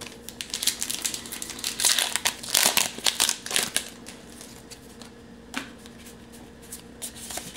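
Foil wrapper of a Pokémon TCG Steam Siege booster pack crinkling as it is torn open and the cards are pulled out, a dense crackle for about four seconds that then dies away to a few faint clicks of cards being handled.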